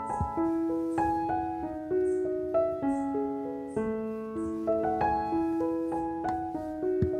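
Background music: a gentle piano melody of single notes played one after another.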